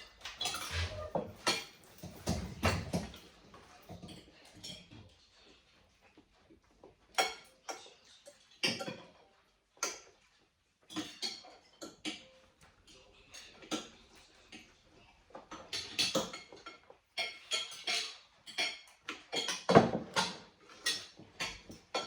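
Cutlery clinking and scraping against plates in irregular clusters of short clicks, with the loudest knock near the end.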